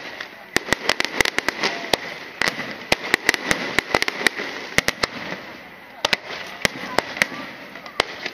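Aerial fireworks display: a rapid, irregular string of sharp bangs from shells bursting, several a second, over a constant crackle, thinning briefly around the middle before picking up again.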